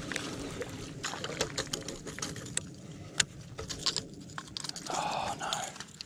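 Baitcasting reel being cranked to wind in a hard-bodied lure, with scattered sharp clicks and rattles from the reel and the lure being handled, and a short burst of hiss about five seconds in.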